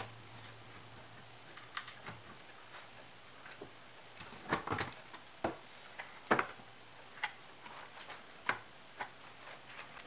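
Irregular clicks and knocks of a CNC machine's power supply and its wires being handled and lifted off the gantry, with the loudest knocks about halfway through.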